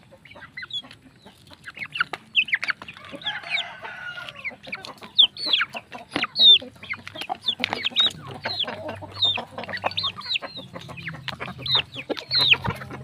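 Chickens clucking and giving short high falling calls while they peck feed from a pan, their beaks tapping on it in quick, irregular clicks.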